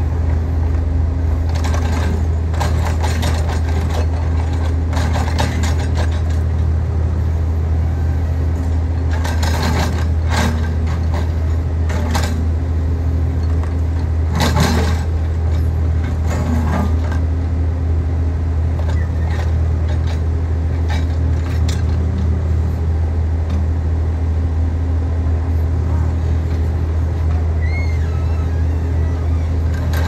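Backhoe loader's diesel engine running steadily at a low, even drone while the backhoe digs. Brief scraping and clanking noises come and go, mostly in the first half.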